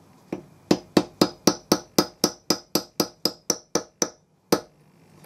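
Hammer striking a pin punch in a fast, even run of sharp metallic blows, about four a second, each with a brief ring, with a single blow just before the run and one more after it. The punch is knocking a broken tap out of a tapped hole in the buffer beam.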